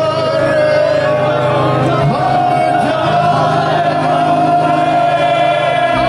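Indian folk-rock band playing live through a PA: a long sung note held over a steady bass, with many voices from the crowd singing along.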